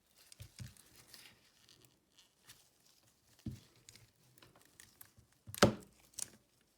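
Close handling noises of a smartphone back-cover repair: light crinkling and tearing with scattered small clicks, and one sharp tap about five and a half seconds in.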